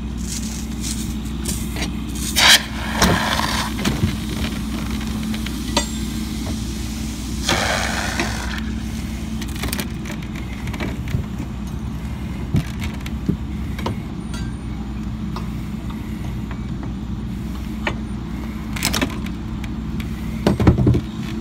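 Steady engine drone, with metal clanks and scraping as a pry bar is worked into the door of a forcible-entry door prop. Two louder bursts of grinding scrape come about two and a half and seven and a half seconds in, and sharper knocks come near the end.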